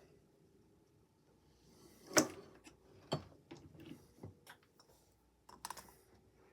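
Scattered clicks and light knocks of objects being handled, the sharpest about two seconds in, with several smaller clicks after it.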